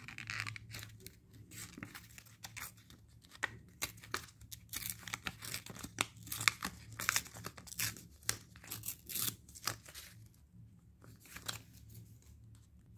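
A sheet of green paper being handled and folded by hand: a run of short, sharp paper crackles and rustles that die down for the last few seconds.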